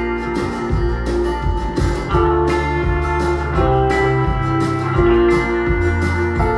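Acoustic folk music with plucked guitar, played back through a pair of B&W Vision series bookshelf loudspeakers and picked up in the room.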